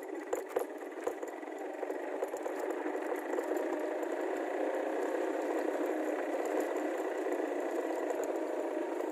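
Motorcycle tricycle running along a rough dirt track, its engine mixed with the rattle and clatter of the sidecar frame. A few sharp knocks from bumps come in the first second or so, then a steady run that grows louder over the next few seconds.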